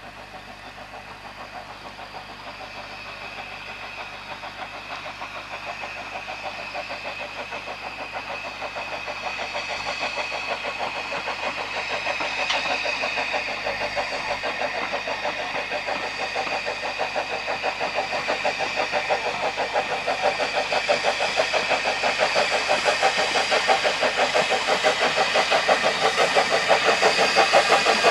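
Small steam tank locomotive, an SECR P-class 0-6-0T, working a train, its rapid regular exhaust beats growing steadily louder as it approaches.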